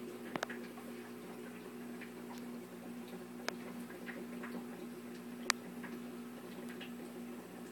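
Steady low hum of an aquarium air pump driving a sponge filter, with scattered faint ticks and a few sharp clicks, the loudest about five and a half seconds in.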